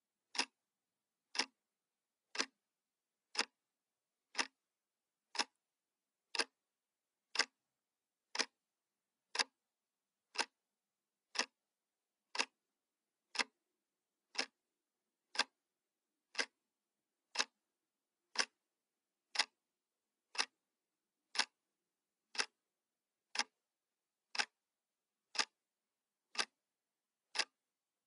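Clock ticking sound effect: one sharp tick every second, evenly spaced, with silence between the ticks, marking the seconds of a countdown timer.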